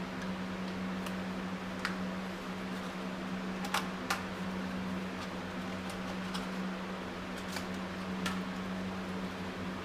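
Steady hum of a shop fan, with scattered light clicks and taps as small engine parts are handled on the bench. A sharp pair of clicks comes about four seconds in.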